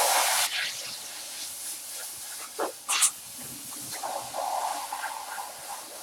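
Can of compressed air (air duster) spraying to blow dust out of a computer: a loud blast at the start that drops to a softer hiss, with two short puffs about halfway through.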